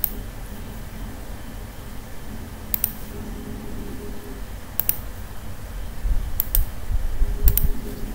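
Computer mouse clicking: five sharp clicks spread over the stretch, most in close pairs, over a steady background hum. Low thumps between about six and eight seconds in are the loudest part.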